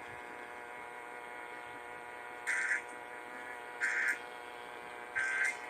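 Weather radio broadcast: a steady hum of dead air, then three short, identical buzzing data bursts a little over a second apart. These are the EAS/SAME end-of-message tones that close the National Weather Service warning.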